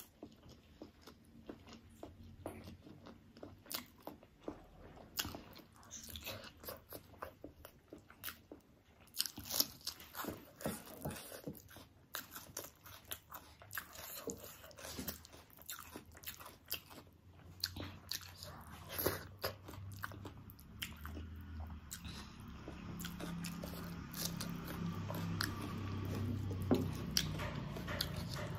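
Close-miked chewing of a mouthful of rice and egg curry eaten by hand, with many short, sharp mouth clicks and crunches. A low hum builds in over the last several seconds.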